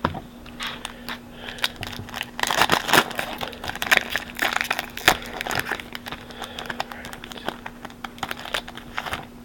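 Foil wrapper of an Upper Deck hockey card pack being torn open and crinkled: a dense run of crackling and rustling, with sharper snaps around three and five seconds in. A faint steady hum runs underneath.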